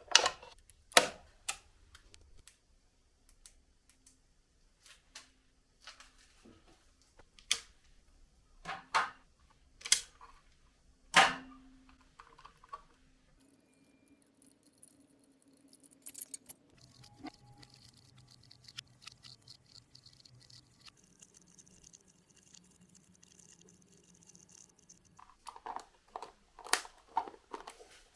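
Sharp clicks and knocks of hard objects being handled, a few seconds apart, the loudest about eleven seconds in; a faint steady hum in the middle, then a quick run of clicks near the end.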